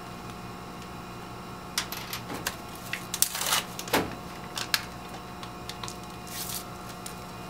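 Crinkling and clicking of a sterile serological pipette's plastic wrapper being torn open and the pipette pulled out, loudest a little after the middle, with another short rustle near the end. Under it runs the steady hum of the biosafety cabinet's blower.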